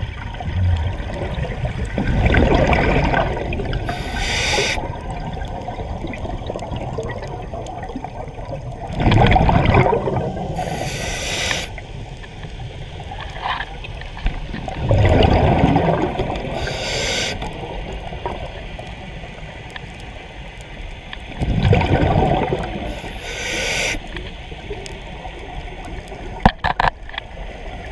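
Scuba diver breathing underwater through a regulator: four breaths, each a rush of exhaled bubbles followed by a short hiss of inhaling, about every six seconds. A few light clicks come near the end.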